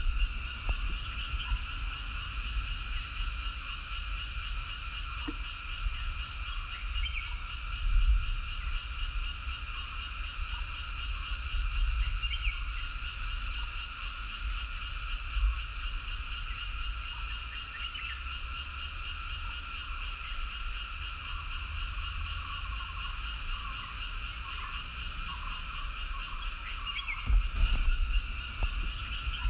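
Dense, continuous chorus of many frogs calling, a steady trilling wall of sound, with a low rumble underneath that swells now and then.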